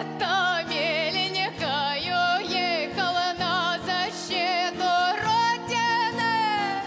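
A woman singing a Russian folk song in an ornamented line with a wide, wavering vibrato, over a steady held instrumental accompaniment. Near the end she holds one long note that slowly sinks in pitch.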